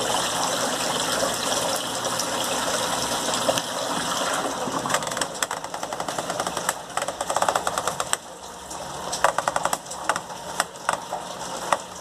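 Water rushing in the tub of an Electrolux Turbo Limpeza 8 kg top-loading washing machine, then, from about four seconds in, the program selector knob clicking rapidly through its detents as it is turned, in several quick bursts.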